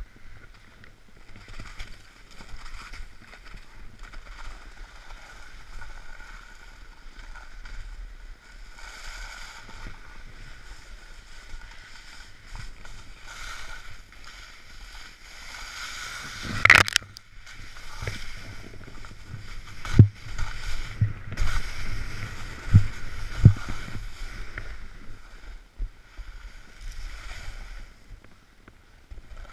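Snowboard sliding through snow, its edges scraping in a hiss that swells and fades with each turn. A loud sharp knock comes about halfway through, then several dull thumps a few seconds later.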